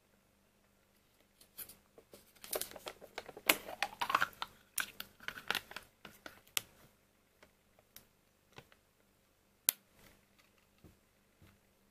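Foil lid being peeled off a plastic buttermilk-dessert cup: a few seconds of crinkling and crackling with a short tearing sweep in the middle, followed by a handful of scattered clicks.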